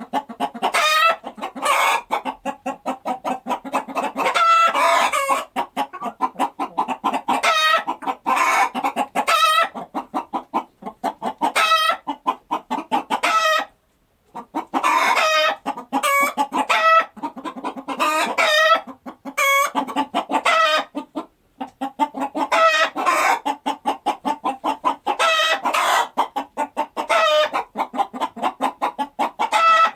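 Chickens clucking in a dense run of quick, rapid calls, with two short pauses, about halfway through and about two-thirds of the way through.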